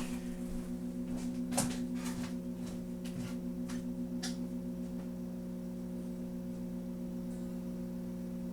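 Steady electrical hum and buzz from a small guitar amplifier with the guitar plugged in, held at one pitch with several overtones. It pulses slightly in the first half, and a few light clicks and knocks of handling come through between about one and a half and four and a half seconds in.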